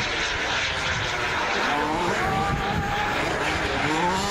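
Engine of a radio-controlled delta-wing model jet flying a display: a steady rushing noise with whining tones that slide up and down in pitch.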